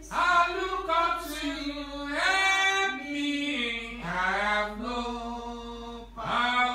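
A man's voice singing a slow unaccompanied worship chorus, holding long notes in a few phrases that step down in pitch.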